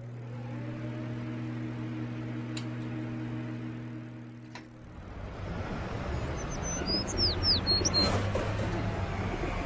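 A low steady drone of held tones fades out about halfway through. It gives way to a rumbling ambient bed, with a few quick, high chirps from small birds near the end.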